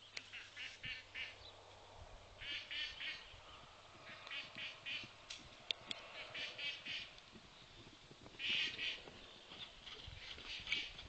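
Birds calling: short runs of quick calls, repeated every second or two.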